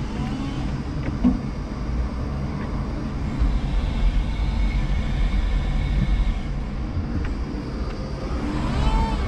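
A 5-ton electric forklift working with a pallet load: a steady low rumble of the truck and its load, heard from the cab, with the whine of its electric motors, which glides up and down in pitch near the end as it moves off.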